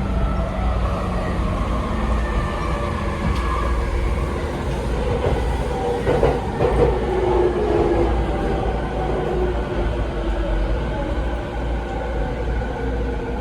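Inside a Rinkai Line 70-000 series electric train car (set Z3) under way: the Mitsubishi IGBT-VVVF inverter and traction motors whine in several tones that slowly shift in pitch, over a steady low running rumble with a few wheel knocks over rail joints. This set is singled out for an unusual running noise.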